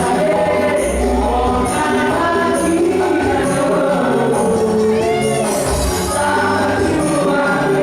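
A song with singing over a bass line and a steady beat.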